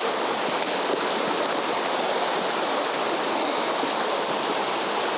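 River water rushing steadily, a loud, even flow.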